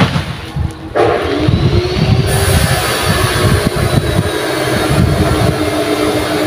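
Engine running steadily. It starts abruptly about a second in and rises slightly in pitch at first.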